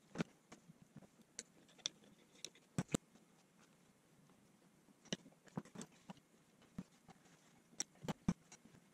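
Scattered light clicks and taps of metal hand tools and brake caliper parts being handled and set down on a workbench, with a quiet gap in the middle and a quick cluster of clicks near the end.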